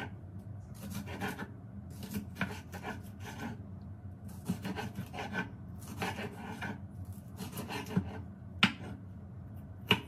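Kitchen knife slicing a green bell pepper on a wooden cutting board: repeated scraping strokes of the blade through the pepper and across the board, with two sharper knocks of the blade on the board near the end.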